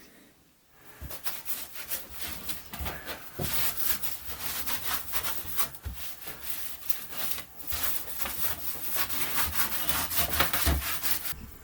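A hand tool rubbing and scraping against wood in quick back-and-forth strokes. It starts about a second in and keeps on, a little more busily towards the end.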